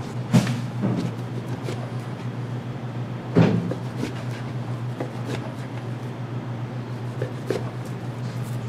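A kitchen knife scoring raw beef on a cutting board, with knocks of the blade and meat against the board, the loudest about half a second in and again about three and a half seconds in. A steady low hum runs underneath.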